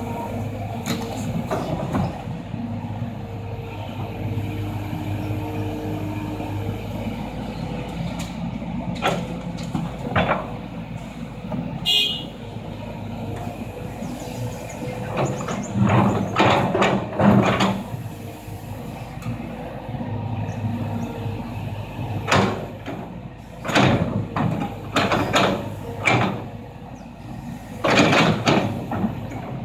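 Kobelco hydraulic excavator working: its diesel engine runs steadily with a whine from the hydraulics as the boom swings and the bucket digs and loads soil into a dump truck. In the second half there are repeated loud scraping and clunking noises from the bucket.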